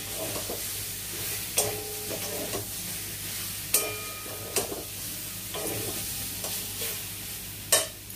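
Masala-coated chicken sizzling as it is sautéed in a metal kadai, while a spatula stirs and scrapes it. The spatula clanks against the pan every second or two, and the sharpest clank comes near the end.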